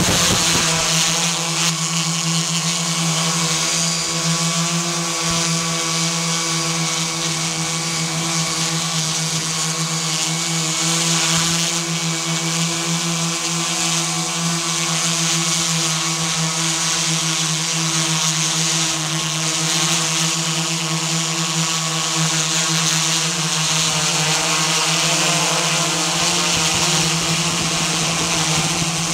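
Multirotor camera drone's motors and propellers humming steadily at one pitch in flight, picked up close by the drone's own camera.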